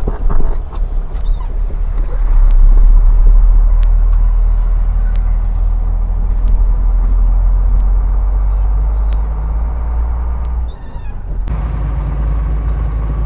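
Oil tanker truck's diesel engine running under way, a loud steady low rumble heard from inside the cab, with a few knocks near the start. About ten and a half seconds in, the engine sound drops away for under a second, then picks up again.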